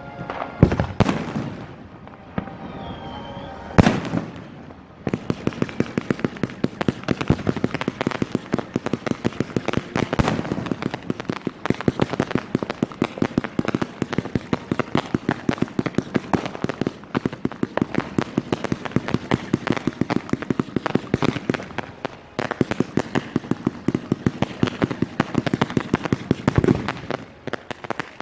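Fireworks display: three separate heavy booms in the first four seconds. From about five seconds in comes a dense, rapid string of many small bangs and crackles, with occasional louder reports standing out.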